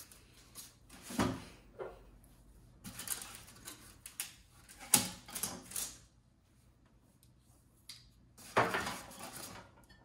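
Cardboard packing inserts being handled and set down on a microwave's top: scattered knocks and scrapes, the sharpest knock about five seconds in and a longer scrape near the end.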